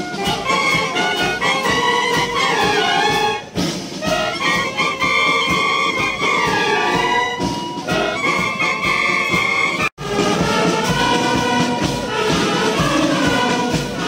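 A police wind band of clarinets, saxophones and brass playing a tune together in full ensemble. The sound cuts out for an instant about ten seconds in.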